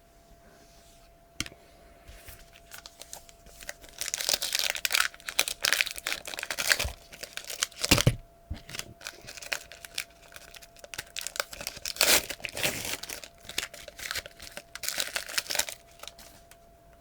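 A trading-card pack wrapper being torn open and crinkled by hand, in irregular rustling bursts with a single thump about halfway through.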